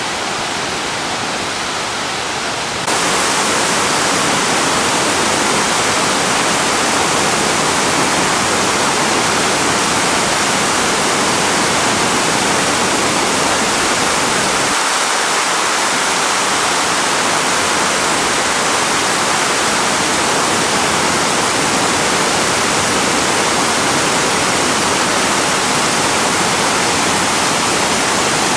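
Steady rushing of water falling at Mae Klang Waterfall, which grows louder about three seconds in.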